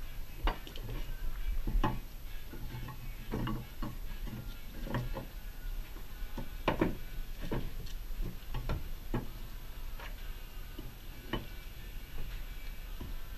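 Irregular light knocks and scrapes of a putty knife and wooden pieces against a plywood board, roughly one a second.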